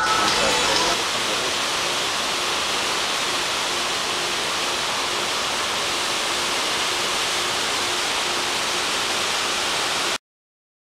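Steady rushing of a cruise ship's churning wake water; it cuts off suddenly near the end.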